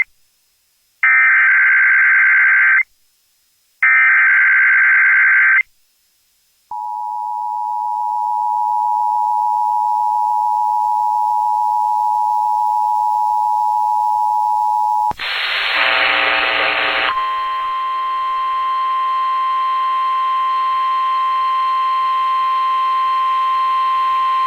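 Emergency Alert System SAME header: screechy digital data bursts, sent three times with short gaps. Then comes the steady two-tone EAS attention signal, which swells slightly over about eight seconds. At about 15 seconds in it gives way to a brief harsh buzz and then a louder, different steady alert tone made of several pitches.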